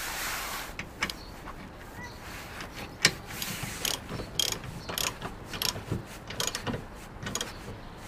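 Ratchet wrench clicking in short, irregular runs as a bolt on a car's tow-hitch receiver is tightened.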